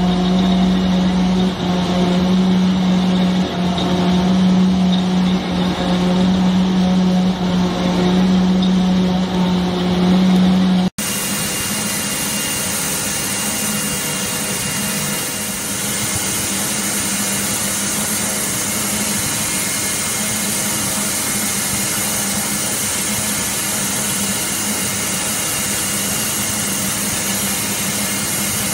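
A large crankshaft lathe running with a loud steady hum. About 11 seconds in it cuts off abruptly, and an even, steady machine-shop noise follows.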